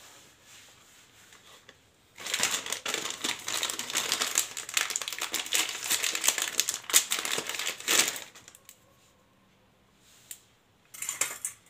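Crinkling and clicking handling noise as engine parts are handled during timing-chain reassembly, starting about two seconds in and lasting some six seconds, with a short burst of the same near the end.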